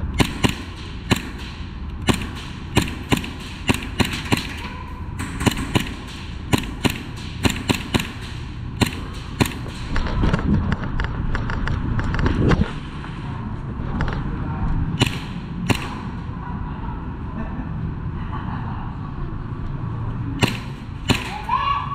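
Novritsch SSP18 airsoft pistol, converted to run on high-pressure air, firing single shots in quick, irregular succession: about two dozen sharp cracks in the first ten seconds, then a few more later on. A steady low rumble sits underneath.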